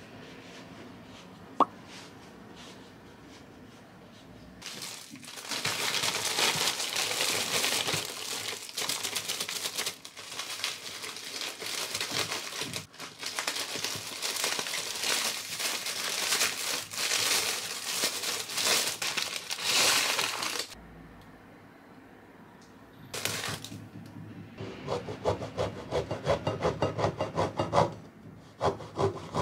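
A plastic bread bag crinkling loudly for about fifteen seconds as it is handled and opened. Near the end, a serrated bread knife saws through a crusty wholemeal loaf in quick back-and-forth strokes.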